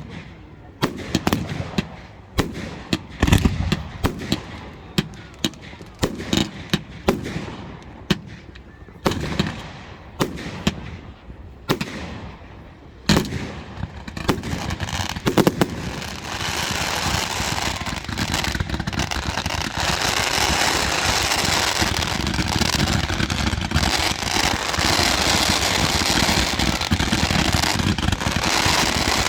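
Fireworks going off: a string of separate loud bangs and pops, then, about halfway through, a dense, continuous crackling that holds steady at a high level.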